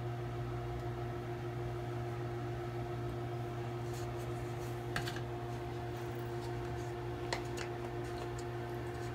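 A steady low electrical hum with a few light clicks and taps, one about five seconds in and another about seven seconds in, as small plastic cups of pigment emulsion are set down and picked up.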